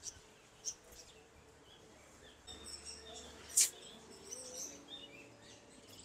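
Caged budgerigars chirping faintly and sparsely, with one sharper chirp a little past halfway.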